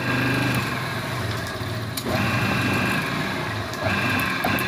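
2 HP single-phase electric motor running on its newly refitted bearing, a steady low hum with a high whine that comes and goes three times.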